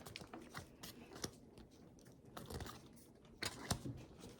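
Faint rustling and scattered small clicks of trading cards and foil booster-pack wrappers being handled.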